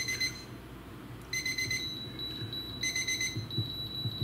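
Wireless meat thermometer's alarm beeping: short bursts of rapid high beeps repeating about every second and a half, signalling that the steak has reached its set temperature.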